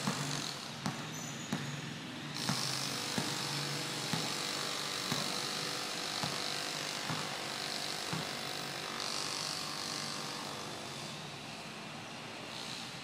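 Basketball dribbled on a concrete court, bouncing about once a second and stopping roughly two-thirds of the way through, over a steady background hiss.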